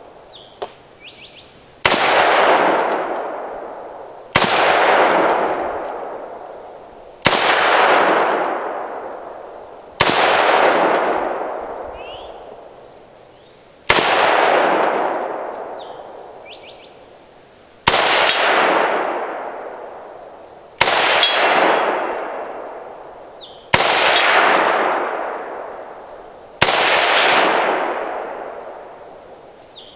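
Semi-automatic rifle shots from a DDI milled AK47 in 7.62x39, fired one at a time: nine single shots spaced about three to four seconds apart, each followed by a long echo dying away.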